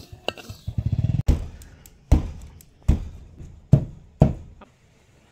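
Wooden pestle pounding dried chillies in a clay mortar: five heavy thuds, each ringing briefly, about one every three-quarters of a second.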